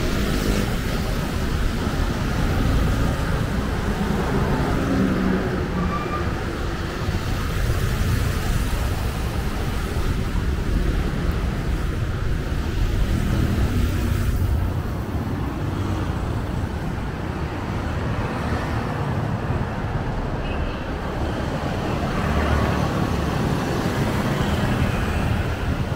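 Street traffic: a steady rumble of passing motor vehicles.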